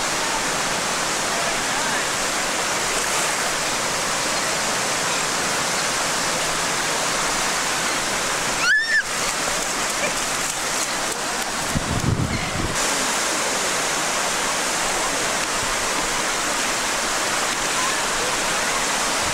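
Ocean surf breaking and washing in the shallows, a steady rushing noise. About nine seconds in, the sound drops out for a moment with a short chirp, and a low rumble follows for about a second around twelve seconds.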